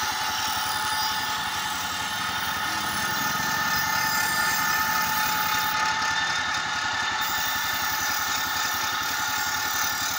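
A Road Prince RP70 motorcycle's 70cc four-stroke single running steadily. It belt-drives a knife-sharpening grinding wheel, with a steady high tone over the engine pulses, and a knife blade is ground against the spinning wheel.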